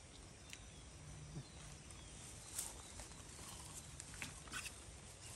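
Faint rustling in undergrowth with a few small, scattered clicks, as someone handles things and moves through the brush.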